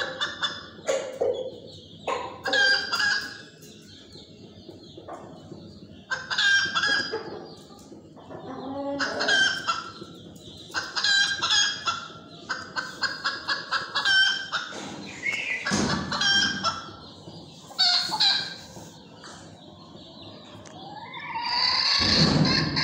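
Domestic chickens clucking in short clusters of rapid pulses every second or two, with a few longer calls among them.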